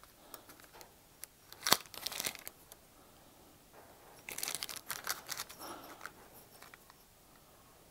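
Two-stroke pistons handled and turned over in the hands: a sharp click about two seconds in, then faint scraping and rustling as they are turned.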